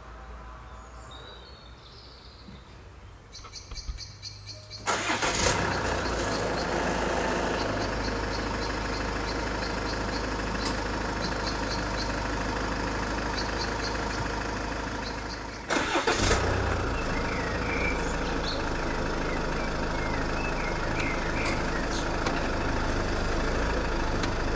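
Jaguar XF 2.2D's four-cylinder turbodiesel starting up about five seconds in and settling into a steady diesel idle. About sixteen seconds in it starts again and idles on.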